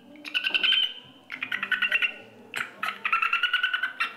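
A woman imitating birdsong: three warbling, rapidly pulsed trilling phrases with short pauses between them.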